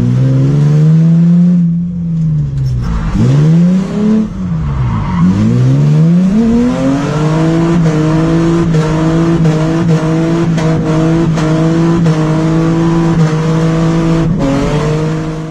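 Mercedes C280 (W202) engine through its open exhaust, with everything from the catalytic converter back removed, heard from inside the stripped cabin while being driven hard. The revs rise and fall several times in quick succession, then hold steady from about seven seconds in.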